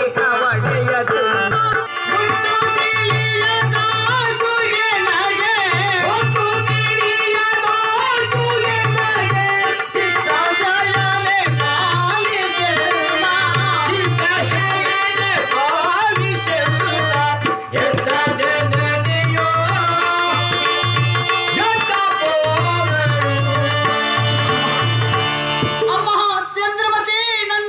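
Tabla drumming a steady repeating rhythm under a woman's singing, the live accompaniment to a Togalu Gombeyata leather shadow-puppet play. The drumming stops near the end while the voice carries on.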